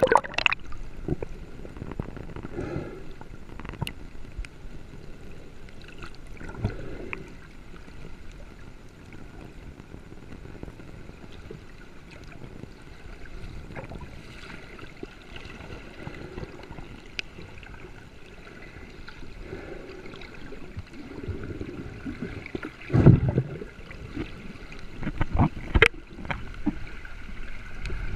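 Water gurgling and sloshing close to the camera, over a faint steady tone, with a few sudden louder bursts near the end.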